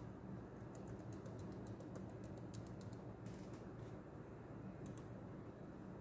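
Laptop keyboard typing: a run of quick light keystrokes through the first half and a couple more near the end, over a faint steady low hum.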